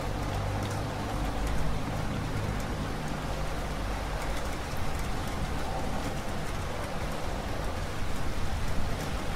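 Steady rain falling, its drops ticking in a dense, even hiss, with a low rumble underneath during the first couple of seconds.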